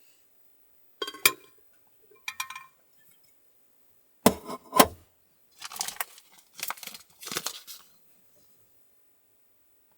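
Six short bursts of clinking and knocking from small hard objects being handled. The loudest pair of knocks comes about four seconds in, and it goes silent after about eight seconds.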